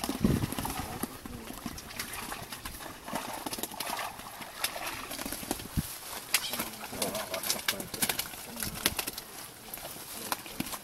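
A fishing keepnet being lifted and handled, its wet mesh rustling with a scatter of short clicks.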